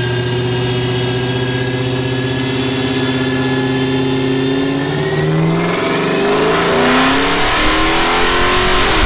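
Dodge Charger R/T's 5.7-litre Hemi V8 with JBA long-tube headers, pulling at full throttle on a chassis dyno. The revs climb steadily, then rise faster and grow louder and rougher over the last few seconds before falling off right at the end.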